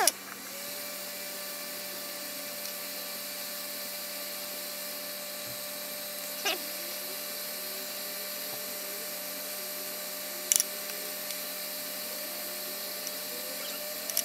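Hot air rework gun blowing a steady hiss with a faint steady whine, heating the rod-tip eyelet to melt its glue, which is not melting well. A few light clicks sound partway through.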